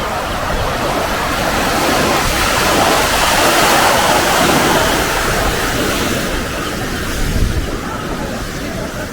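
Pacific surf breaking and washing up the beach. The rush swells to its loudest about three to four seconds in, then eases.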